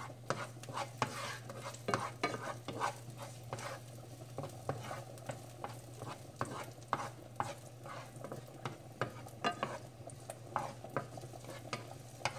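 Wooden spatula stirring garlic sautéing in oil in a pan: a light sizzle with frequent, irregular knocks and scrapes of the spatula against the pan.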